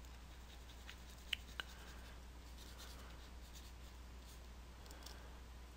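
Stylus scratching faintly across a graphics tablet in drawing strokes, with two sharp taps about a second and a half in, over a steady low hum.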